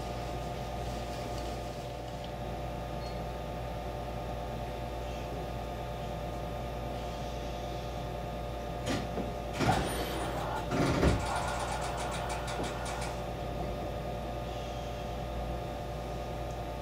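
Steady hum of a stationary JR West 225 series electric train's onboard equipment, with several fixed tones in it. About nine to eleven seconds in come a few knocks, followed by a short run of quick, evenly spaced ticks.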